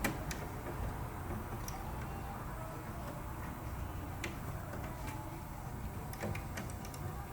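Steady low background hum with scattered small, sharp clicks and ticks, typical of hands handling wires and tools during air-conditioner wiring work.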